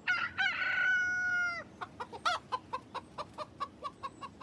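A rooster crowing once in one long call, followed by a quick run of chicken clucks.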